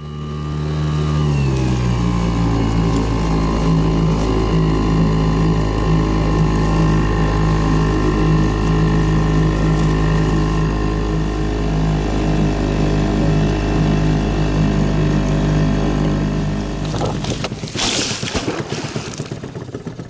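Small Yamaha outboard motor running steadily after easing down in speed about a second in. It cuts out about seventeen seconds in, followed by a short burst of noise.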